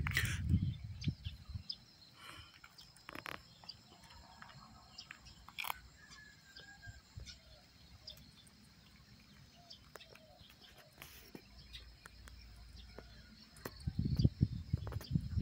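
Rural outdoor ambience: a steady high-pitched insect drone with scattered short bird chirps. Wind buffets the microphone with a low rumble at the start and again for the last couple of seconds.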